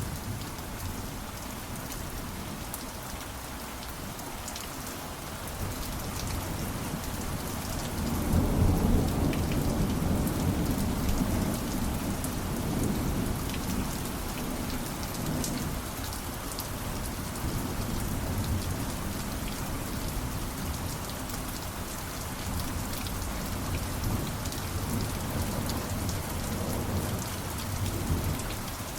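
Steady rain falling, with a low roll of thunder swelling up about a third of the way in and fading out slowly.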